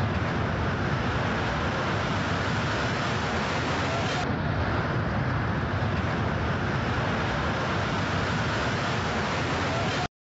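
Steady outdoor street noise: a continuous rumble of wind on the camcorder microphone and distant traffic, with indistinct voices in it. It cuts off abruptly near the end.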